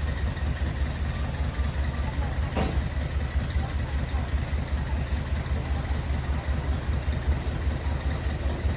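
Heavy diesel machinery engine running steadily with a deep, fast-pulsing rumble, as of an excavator at work. A brief hiss about two and a half seconds in.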